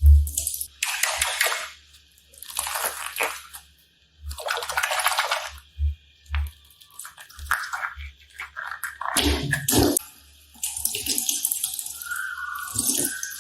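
Wet, sticky slime being squeezed and stretched by hand, squelching and crackling in bursts of a second or two with short pauses between, and soft low thumps.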